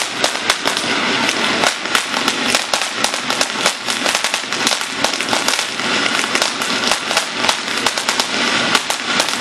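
Ground fountain firework spraying sparks: a steady hiss dotted with rapid, sharp crackles.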